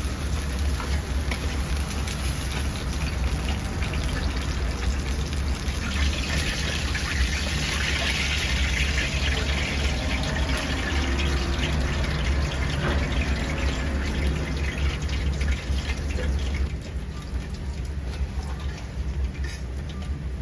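Kitchen noise: a steady low hum under a hissing, rushing sound that grows louder about six seconds in and eases off around eleven seconds, like water and steam hissing in a hot pan.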